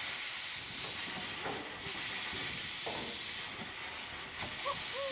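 Steam hissing loudly from a two-cylinder steam towing winch as it runs. The hiss thins out briefly every second or two.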